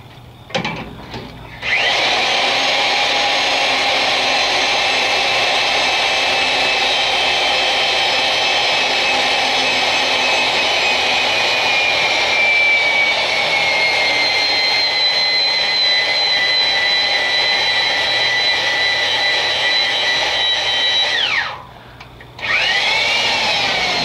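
Heavy electric drill driving a boiler tube expander, rolling a tube end out against the tube sheet to seal it. The motor whines steadily and its pitch sags slowly partway through as the rollers bear down. It stops about 21 seconds in, then spins back up with a rising whine near the end, after a short burst at the start.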